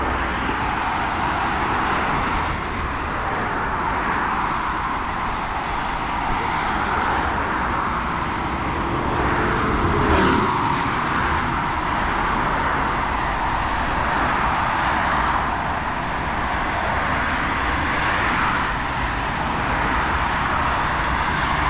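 Steady noise of traffic on a multi-lane road, swelling as cars pass, most noticeably about ten seconds in.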